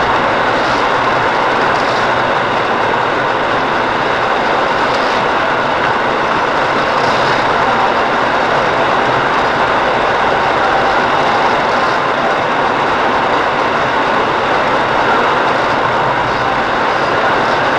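Steady road and engine noise of a car driving, heard inside its cabin: an even rushing sound with no distinct events.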